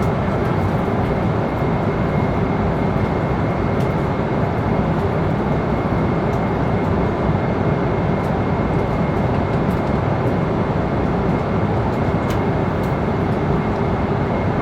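Airliner passenger cabin in flight: the steady rush of engine and airflow noise, unchanging in level, with a thin steady high whine above it and a few faint ticks.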